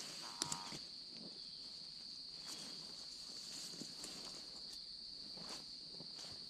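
Steady high-pitched chorus of crickets. A sharp click about half a second in, then faint clicks and rustling: tent clips being unclipped from the poles.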